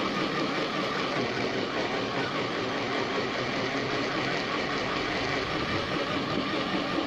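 Countertop electric blender motor running steadily, blending a jug of spinach, carrot and broccoli with water into a green juice.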